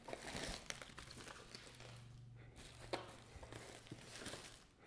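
Faint rustling and crinkling of bubble wrap and cardboard as a board game box is lifted out of a bubble-wrap-lined shipping box, with a few light taps.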